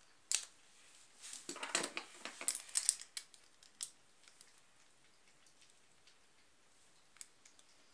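Plastic Beyblade spinning-top parts clicking and clattering in the hands as they are snapped together, with a few sharp clicks. After about three seconds it thins out to occasional faint ticks.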